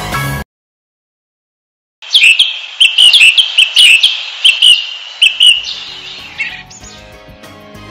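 Music cuts off into a second and a half of silence, then a small bird chirps loudly in a quick series of about a dozen short notes, each sweeping down in pitch, for about four seconds. Soft music fades back in under the last chirps.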